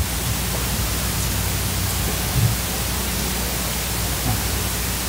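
Steady hiss with a low electrical hum, the open microphone and sound system's noise floor, with a couple of faint knocks, one near the start and one about halfway through.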